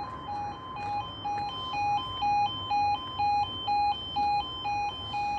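Railway level crossing audible warning alarm sounding with the barriers down: a two-tone warble that switches between a lower and a higher pitch about twice a second, growing louder over the first two seconds. It warns that a train is approaching.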